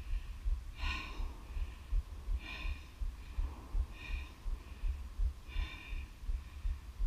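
A person's breathing close to a head-mounted microphone, in and out about every one and a half seconds, after strenuous snowshoeing, over a low wind rumble.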